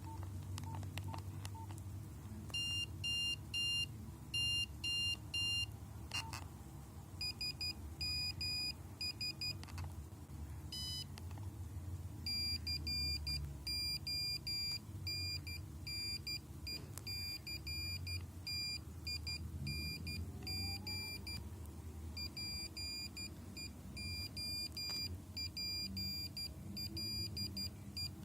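Nokia 5125 mobile phone playing monophonic ringtones: high, buzzy single-note beeps in quick rhythmic phrases with short gaps between them. A few short, lower beeps at the start sound like keypad tones while a ringtone is being picked.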